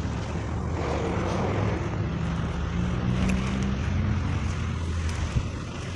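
A motor vehicle's engine running, a steady low drone.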